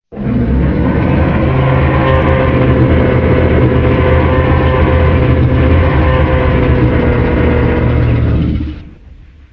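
A Godzilla film sound effect: a loud, steady, rumbling sound with a held tone in it, lasting about eight and a half seconds. It starts abruptly and fades out near the end.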